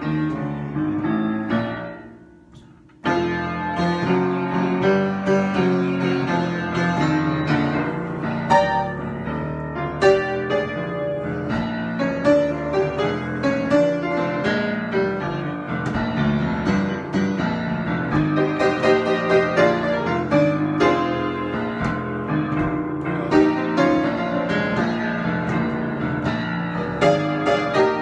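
Solo piano improvisation: a phrase dies away about two seconds in, and the playing starts again a second later and runs on in a continuous flow of notes.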